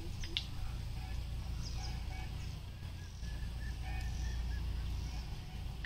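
Faint, short calls of domestic waterfowl, a few at a time around two seconds in and again near four seconds, over a steady low rumble.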